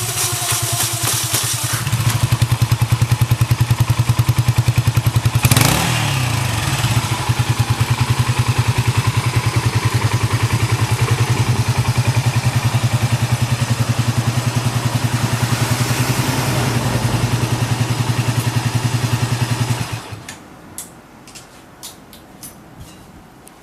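Yamaha SRX250's single-cylinder four-stroke engine idling steadily with even exhaust pulses, blipped once briefly about five seconds in. It is switched off about twenty seconds in, followed by a few faint clicks.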